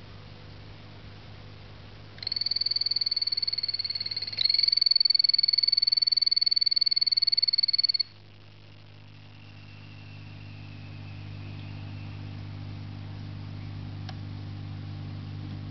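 A small frog calling with a high-pitched, rapidly pulsed trill. It starts about two seconds in, gets louder after a brief break, and stops about eight seconds in. A low steady hum is heard under it and on its own after the call stops.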